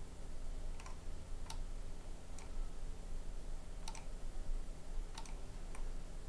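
Computer mouse clicking: about six sharp, irregularly spaced clicks over a faint steady low hum.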